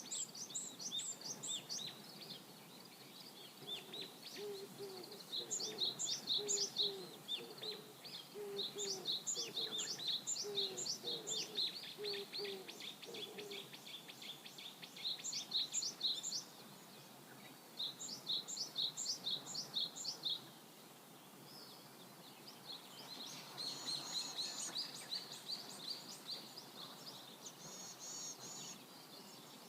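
Birds singing outdoors: repeated quick runs of short, high chirps, with pauses between runs, and a lower repeated call underneath for the first dozen or so seconds.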